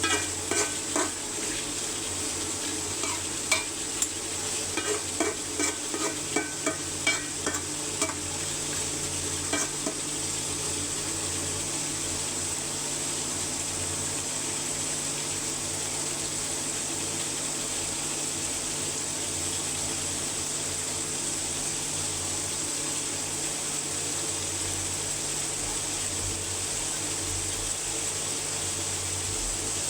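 Spiced chicken curry sizzling in a pot. A spoon clicks and knocks against the pot through the first ten seconds or so as it is stirred; after that only the steady sizzle continues.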